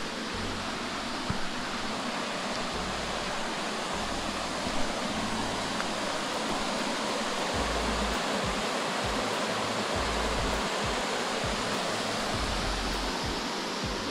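Small river rushing over rock slabs and shallow rapids: a steady, even rush of flowing water.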